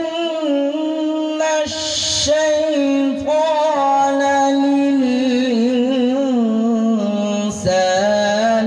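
A man chanting the Quran in melodic qira'at style, holding long, drawn-out notes with wavering ornaments between them, amplified through microphones.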